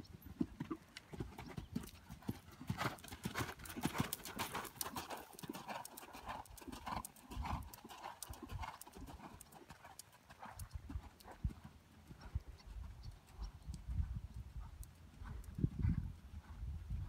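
Hoofbeats of a registered appendix gelding cantering on sand arena footing: a long run of dull thuds and knocks.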